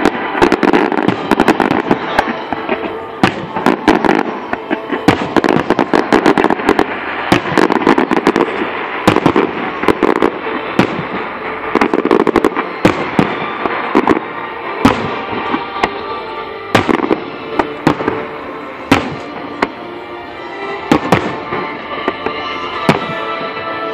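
Aerial fireworks display: a rapid run of shell bursts and crackling, thinning in the second half to single bangs a second or two apart, with music playing underneath.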